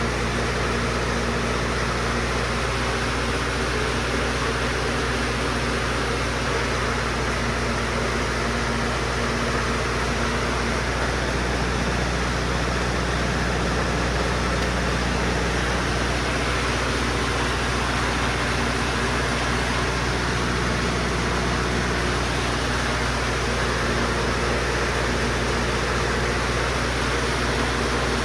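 FMC M10000 aircraft ground air-conditioning unit running steadily while it warms up just after start-up: a constant low machine hum under a loud, even rush of air from its fans.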